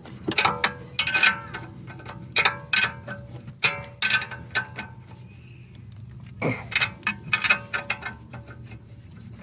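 Metal hand tools clinking against each other and on metal suspension parts: irregular clusters of sharp metallic clinks, each with a short ringing tail, with a quieter gap around the middle.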